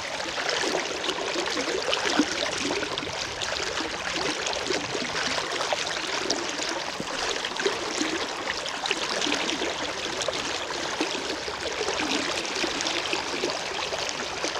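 Strong river current rushing and bubbling close by, a steady splashing and gurgling of water around a wading angler.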